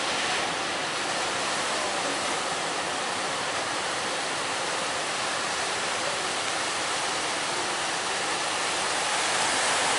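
Heavy surf in strong wind: a steady, loud rush of big waves breaking.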